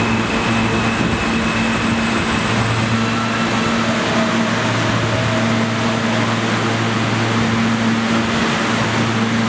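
New York City Subway R160 train slowing to a stop beside the platform: a steady rumble and hiss of the cars, with faint motor tones over it.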